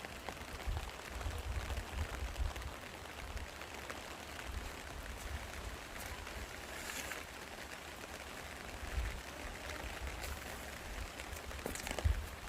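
Steady rush of rain and a flowing mountain stream, with a low, fluttering rumble underneath and a few faint ticks of drops.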